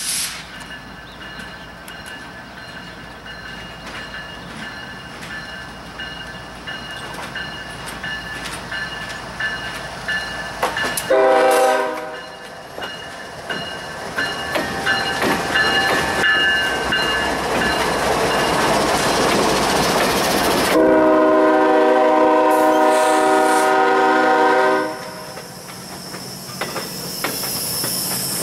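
Freight train rolling past with a string of new GE ES30ACi locomotives in tow: steady wheel and rail noise with many clicks. The lead diesel's multi-note air horn sounds twice, a short blast about a third of the way in and a long blast of about four seconds past the middle.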